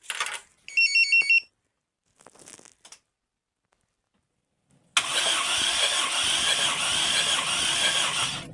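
About four quick electronic beeps from the car alarm's remote start, then after a pause the starter cranks the Toyota 7A-FE inline-four with its spark plugs removed for about three and a half seconds, an even, noisy whirr with no firing, during a compression test of the fourth cylinder.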